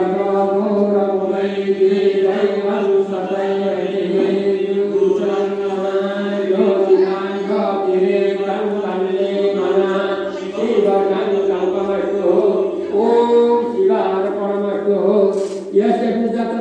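Devotional chanting at a temple puja: singing voices over a steady held low drone, continuing without a break.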